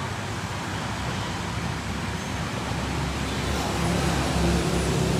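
Street traffic passing, a steady noisy hiss. After about three and a half seconds a vehicle's engine hum comes in and grows louder.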